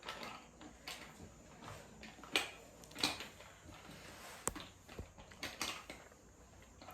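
Makeup containers and cases being handled at close range: scattered light clicks and brief rustles, with one sharp click about four and a half seconds in.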